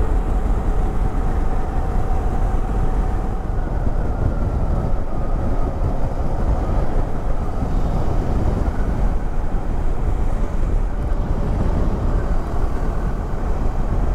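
Motorcycle cruising at a steady road speed: heavy wind rush over the microphone, with the engine's steady note underneath.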